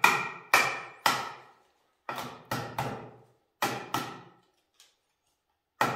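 Soaked willow sticks knocking against each other: about eight sharp wooden clacks in uneven groups, each with a short ringing tail, as long base sticks are pushed through split base sticks for a woven basket base.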